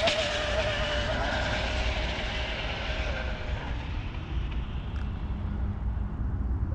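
Onboard sound of the Infraction GT RC car slowing down after a high-speed run. A steady drivetrain whine and a rush of wind and tyre noise fade away over the first few seconds, leaving a low rumble.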